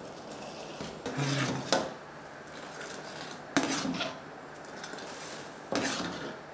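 Metal ladle working boiling milk tea in a copper saucepan: scooping, pouring back and stirring, with a wash of liquid and three sharp knocks of the ladle against the pan about two seconds apart. The tea is being churned to aerate it and make it frothy.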